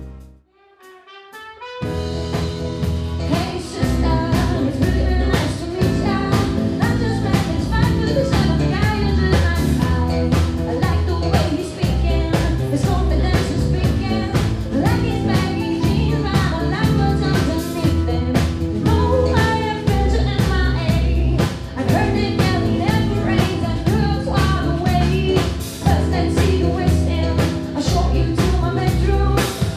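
Live band music, jazz-tinged. It drops to a near-silent break for about two seconds at the start, then the full band comes back in and plays steadily on a strong beat.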